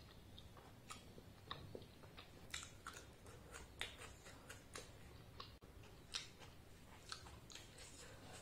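A person chewing a mouthful of luchi (soft deep-fried puri bread) with ghugni, giving irregular soft wet mouth clicks and smacks.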